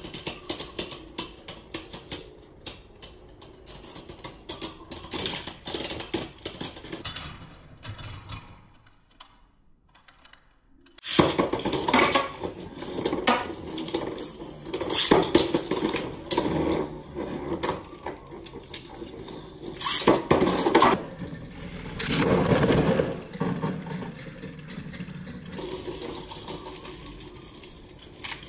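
Beyblade Burst spinning tops clattering against each other and the walls of a clear plastic stadium: rapid clicks and knocks, with a short lull about a third of the way in.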